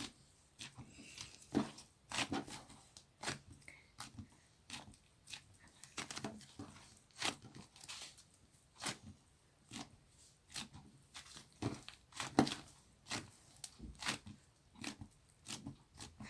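Angel clay (soft, lightweight modelling clay) being squeezed and pulled apart by hand: irregular crackly squishes and small tearing sounds.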